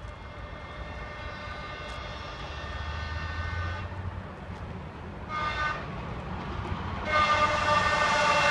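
ChS7 electric locomotive's horn sounding warning blasts at people on the tracks: a long blast of about four seconds, a short blast, then another blast starting near the end, over a low rumble that grows louder as the train approaches at speed.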